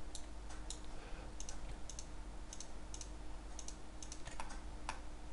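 Computer mouse clicks and keyboard key presses, irregular and sometimes in quick pairs, over a faint steady hum.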